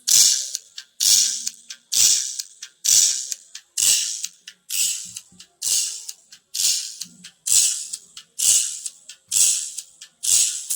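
Music from a Bluetooth amplifier board played through a tweeter alone. Only the treble comes through: a thin, cymbal-like beat about once a second, with almost no bass.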